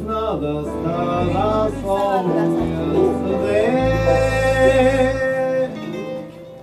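Live small band playing a slow song: a voice sings a melody with a long held note in the middle, over electric guitar and upright double bass.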